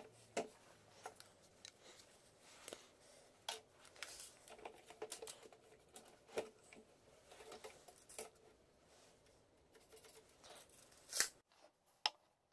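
Quiet hand-handling noises: scattered light taps, clicks and rubs as a plastic PVC pipe is moved on caster wheels and a tape measure is used on it. Two sharper clicks come near the end.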